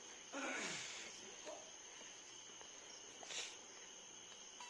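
Crickets trilling faintly and steadily in the background, with a short falling sound about half a second in and a brief hiss a little later.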